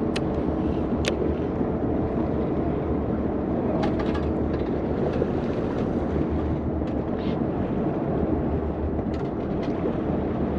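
Steady low drone of a boat's engine running, with a few light, sharp clicks scattered through it.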